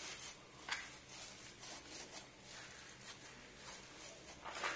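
Spatula scraping and pressing damp semolina batter flat across a metal baking tray, a soft rubbing hiss with two brief sharper clicks, about a second in and near the end.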